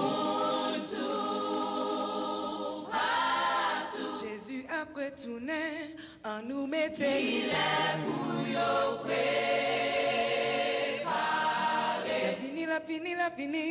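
A choir singing a cappella, holding long chords.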